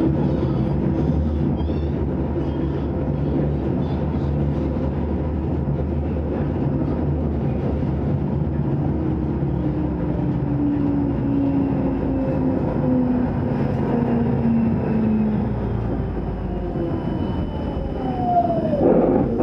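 Electric tram running along a city street, heard from inside the car: a steady rumble with low motor tones. In the second half the motor's pitch slides down as the tram slows, and near the end a higher whine falls steeply as it brakes.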